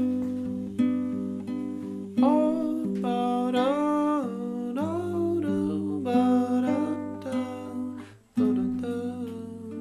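Music: an acoustic guitar strumming chords, with a sliding melody line over it in the middle, a brief break about eight seconds in, then the strumming picks up again.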